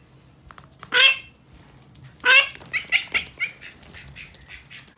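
Pet domestic duck quacking loudly: two loud calls about a second and two seconds in, then a quick run of shorter quacks.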